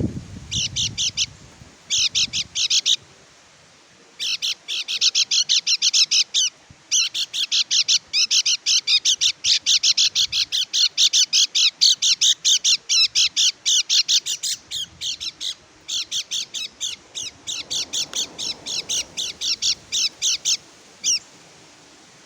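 Kecial kuning (pleci), a white-eye, singing a fast, high chattering song of rapid short notes. It gives two short phrases first, then a long unbroken stretch of song that ends with one last note near the end.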